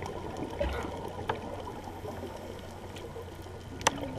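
Muffled underwater water noise on a reef, with a few short sharp clicks, the sharpest near the end.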